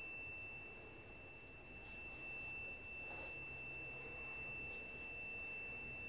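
Digital multimeter's continuity beeper sounding one steady high-pitched tone while the probes rest across a conductive-paint trace repair, signalling a low-resistance connection of about 10 ohms.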